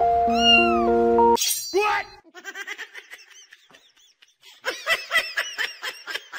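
Background music that cuts off suddenly about a second and a half in, then a cat making runs of short, high-pitched chirping calls, with a brief pause between the two runs.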